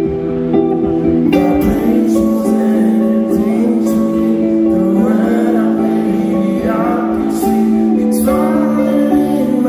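Live rock music: an electric guitar playing held chords, with a voice singing over it at times.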